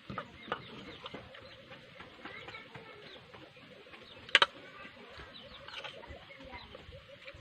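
Chickens clucking and chirping in the background, many short calls scattered throughout. A sharp double click about four seconds in.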